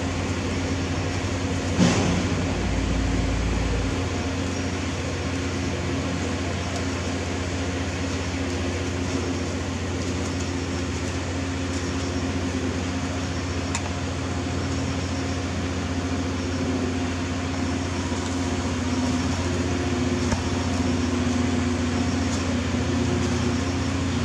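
A steady low machine hum, with one sharp click about two seconds in.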